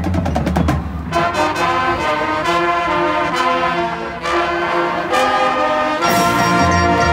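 High school marching band's brass section playing a series of held chords that change every second or so. A fuller chord with the low brass comes in near the end.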